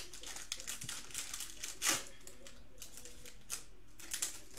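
Foil wrapper of a Panini Mosaic basketball card pack crinkling and being torn open by hand: a run of quick sharp crackles with one louder crackle about two seconds in.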